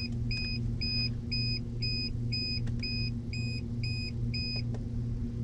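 Short electronic beeps, about two a second, from a freshly powered plug-in digital thermometer that is showing an 'EEE' error reading. The beeps stop about four and a half seconds in. Under them runs a steady low electrical hum, from the inline duct fan running.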